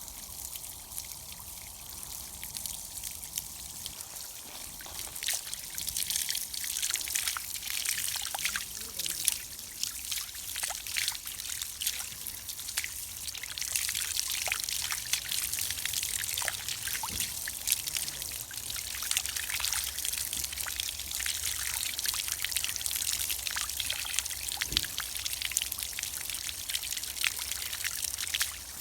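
Spring water trickling and pouring steadily, with many small splashes and drips. It grows louder about five seconds in and again about halfway through.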